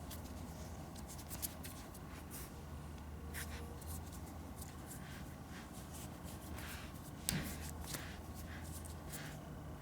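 Scattered small clicks and rustles of objects being handled by hand, with a sharper click about seven seconds in, over a steady low hum.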